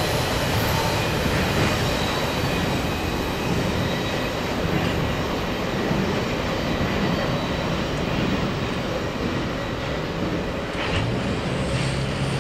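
Double-stack intermodal freight train's well cars rolling past on steel rails, a steady rumble and rattle with faint wheel squeal in the first few seconds, easing slightly as the tail end passes and recedes. Near the end, a road vehicle's engine hum comes in close by.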